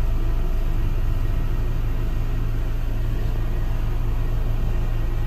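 Outdoor central air-conditioning condenser unit running with a steady low hum.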